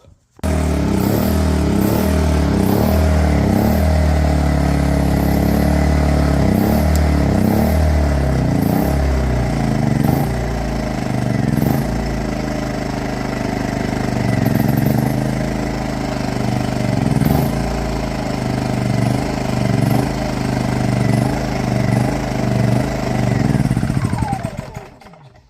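WEN inverter generator's small engine running rough in eco mode, surging and misfiring so its pitch wavers up and down unevenly; it winds down near the end. The owner suspects a carboned-up spark plug causing the misfire.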